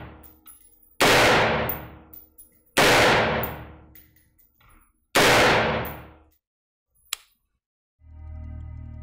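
Three unsuppressed shots from a Daniel Defense DDM4 V5 16-inch rifle in 5.56 NATO firing Federal XM855, spaced about two seconds apart, each a sharp report with a long echoing tail. A single short click comes near the end, then soft ambient music begins.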